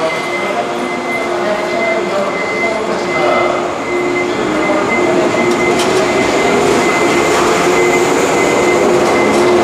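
JR 185 series electric train pulling out of the platform and gathering speed, its wheel and traction-motor noise growing gradually louder, with a steady high tone throughout.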